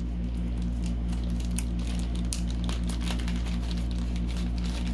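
Plastic packaging crinkling and clicking irregularly as a bag is opened, over a steady low electrical hum.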